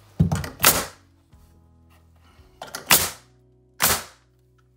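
Pneumatic nail gun firing nails through a new pressure-treated sill plate into the old sill: four sharp shots, two close together at the start, one about three seconds in and another near the end.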